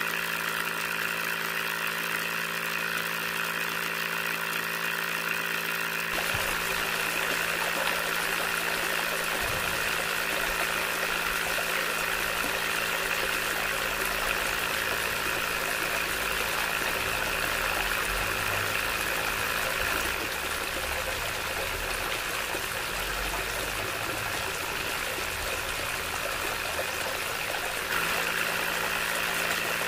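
Small DC toy motor running steadily with a high whine, driving a homemade mini water pump through a rubber-band belt and pulleys.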